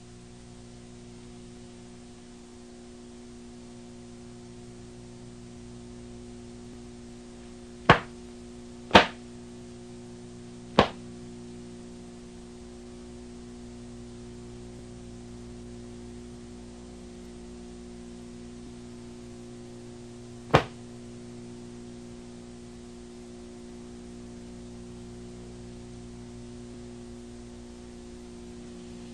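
Steady low electrical hum with four short, sharp snaps from a taekwondo practitioner's strikes while performing a form. Two snaps come about a second apart some eight seconds in, one follows near eleven seconds and one near twenty seconds.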